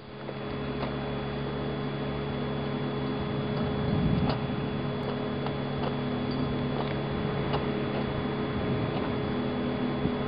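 Steady hum with several constant pitched tones, like a fan or other running appliance, with a few faint ticks and a slight swell about four seconds in.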